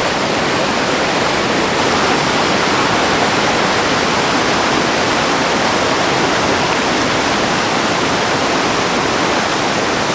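Loud, steady rush of a river pouring over a waterfall and through a rocky gorge, a dense even roar with no breaks.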